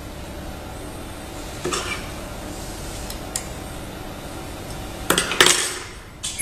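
Ultrasonic lace sewing machine running with a steady hum, with metallic clinks: one about two seconds in and two louder ones close together near the end.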